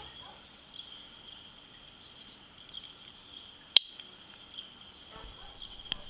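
Insects chirring steadily in a high, thin band, with a single sharp click a little before four seconds in and a smaller click near the end.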